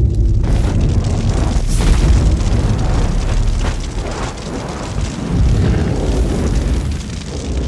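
Wildfire burning through trees and brush: a loud, rushing noise over a low rumble, with scattered sharp crackles.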